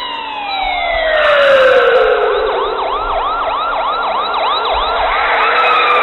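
Police sirens: a wailing tone that slides steadily down in pitch over the first two and a half seconds, joined about a second in by a fast yelping siren, about three rises and falls a second.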